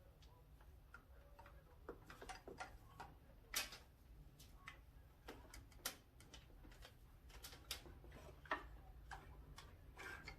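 Faint, irregularly spaced clicks and light taps, like tools and small parts being handled during motorcycle disassembly, over a low steady hum.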